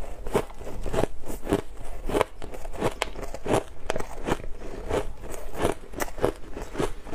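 Frosty crushed ice crunched between the teeth, close to the microphone: a string of sharp, irregular crunches about twice a second.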